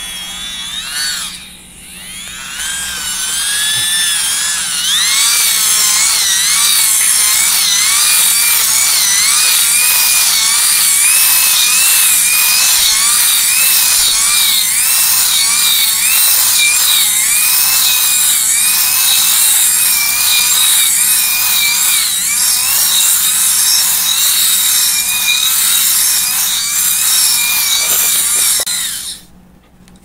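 Microwave turntable synchronous motor and its reduction gearing whining as the shaft is cranked fast by hand to generate power for a USB charger. The whine builds up over the first few seconds, wavers in pitch with the cranking speed, and stops near the end.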